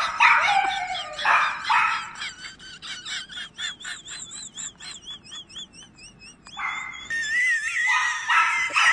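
Small Yorkshire terrier barking in quick, sharp, repeated barks. In the middle the barks give way to rapid high yips and wavering whines, and the barking picks up again near the end.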